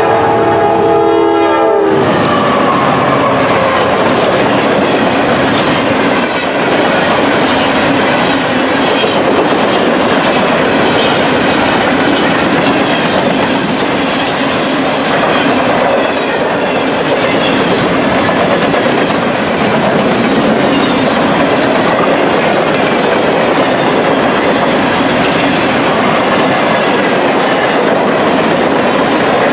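A locomotive's multi-chime horn sounds and cuts off about two seconds in, then a train rolls past with a steady, loud rumble and clatter of wheels on rail.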